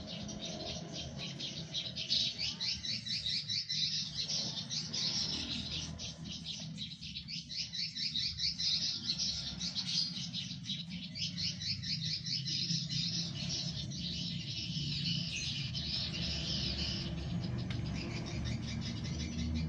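Baby birds chirping in a rapid, continuous stream of high, thin peeps, thinning out near the end, over a steady low hum.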